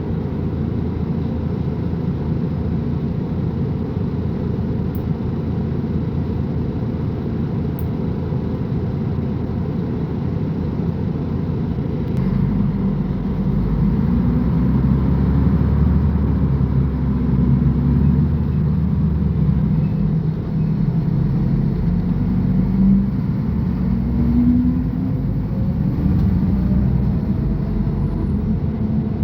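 Mercedes-Benz O500UA bus diesel engine running steadily, then about twelve seconds in growing louder as the bus pulls away, its pitch rising and dropping back a few times as it accelerates through the gears.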